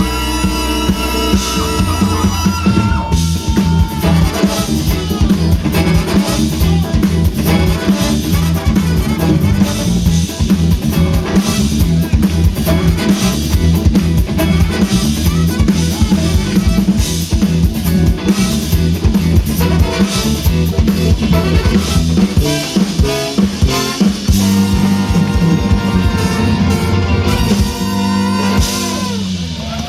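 Live brass band music over a PA, driven by a steady drum-kit beat of kick and snare, with held chords near the start and again toward the end.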